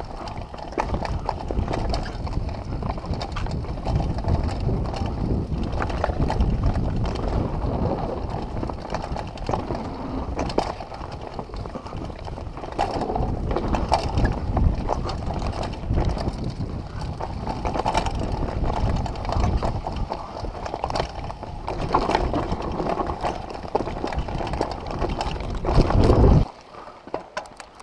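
Mountain bike descending a rough dirt trail at speed: steady wind and trail rumble on the camera mic, with frequent clicks, knocks and rattles from the bike over bumps. The noise drops off abruptly near the end.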